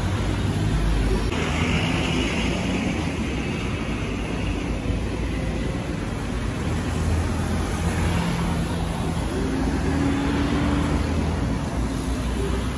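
Steady outdoor engine rumble with a hiss and a few slowly wandering low hums, the mix of a distant aircraft overhead and city traffic.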